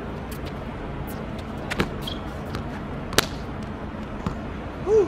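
A basketball bouncing on a hard court: three sharp, separate bounces over a steady background hiss. Near the end a short rising-and-falling tone is the loudest sound.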